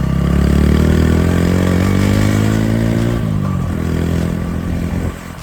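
TVS Apache motorcycle engine pulling up in pitch for a couple of seconds, then dropping back about three seconds in as the throttle eases.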